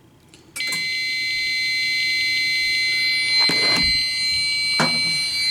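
Fire-Lite fire alarm control panel and its remote annunciator sounding their built-in piezo buzzers in a steady, high-pitched, unbroken tone that starts suddenly about half a second in, the sign that a smoke detector has put the system into alarm. A couple of brief knocks sound over it.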